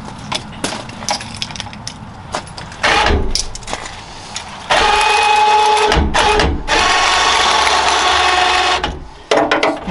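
A few light clicks and knocks. Then an electric motor runs in two bursts, a short one of about a second and a longer one of about two seconds, each holding one steady pitch.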